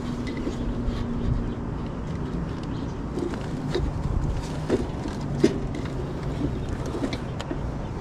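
Gas packaged unit's newly replaced draft inducer running steadily on a test firing, pulling over an inch of water column, a sign the new inducer and pressure switch are working. A few light taps sound over the steady hum.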